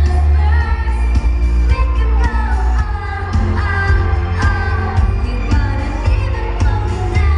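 A woman singing a pop song live into a microphone over an amplified backing track with a heavy bass and a steady beat.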